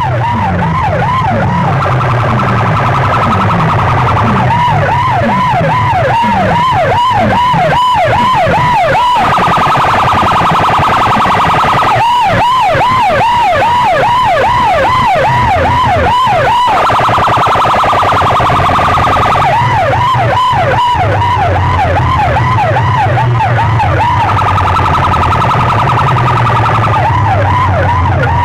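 Siren-style electronic sound effect blasted through a wall of horn loudspeakers driven by a stack of amplifiers. A tone swoops up and down about two and a half times a second, switching every few seconds to a steady held tone, and repeated low falling sweeps run underneath for the first several seconds.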